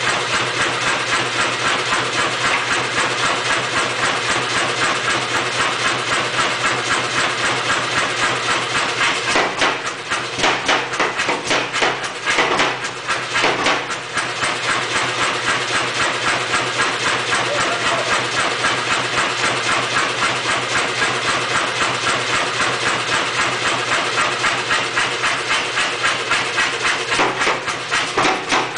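Say-Mak pneumatic power hammer running with a steady chugging rhythm of about three beats a second. Between about ten and fourteen seconds in come sharper, heavier blows as the ram drives a punch into red-hot steel to shear out a slug.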